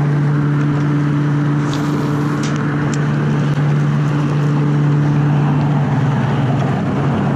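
A steady low hum, two tones one above the other, over a wash of noise, with a few faint light ticks around two to three seconds in.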